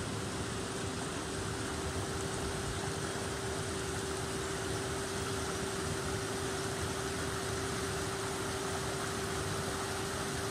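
Powerspout micro-hydro turbine running: a steady, constant whine over an even rushing hiss.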